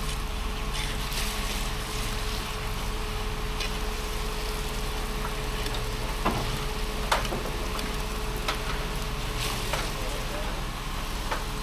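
Concrete pump's engine running steadily during a core-fill pour, with a handful of sharp knocks scattered through it, the loudest two about six and seven seconds in.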